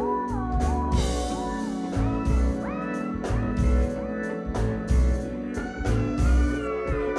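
Live funk band playing: a deep pulsing bass line and drum kit under held keyboard chords, with a lead line that slides up and down between notes.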